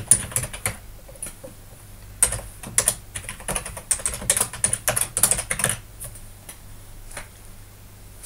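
Computer keyboard being typed on in quick bursts of keystrokes while entering a username and then a password, thinning to a few single key presses over the last couple of seconds.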